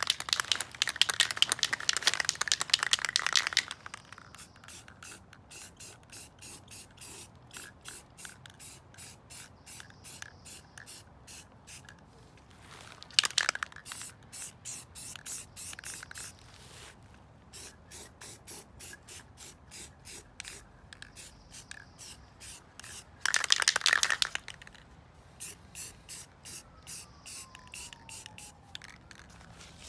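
Aerosol rattle can of spray paint being sprayed onto a drift trike wheel: a loud hiss lasting about three and a half seconds at the start, a short hiss about 13 seconds in and another about a second long near 23 seconds. Between the sprays there is a rapid, quieter series of ticks.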